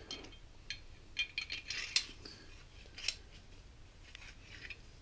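1911 pistol slide and frame clicking and scraping as they are handled and slid together: a cluster of light metallic clicks about a second in, another sharp click near three seconds, and a few fainter ones later.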